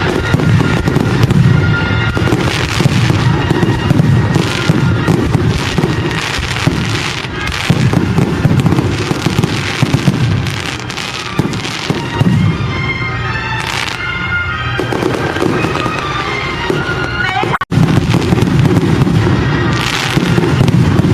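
Fireworks going off in a dense, continuous barrage of bangs and crackling, with a momentary cut-out about seventeen seconds in.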